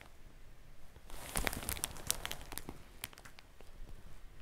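Plastic shopping bag under the head crinkling as it is pulled to one side to slide the head over, a dense run of sharp crackles from about a second in.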